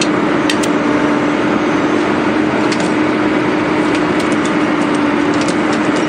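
Excavator engine and hydraulics running steadily with a constant hum, with scattered short, sharp cracks over the top.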